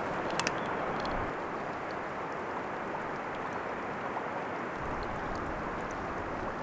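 Steady rushing of wind, with a few faint clicks in the first second or so.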